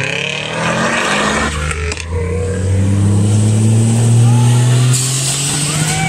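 Subaru Impreza WRX STI's turbocharged flat-four engine accelerating hard, with a short break in the note about two seconds in, then revs climbing steadily before falling away near the end.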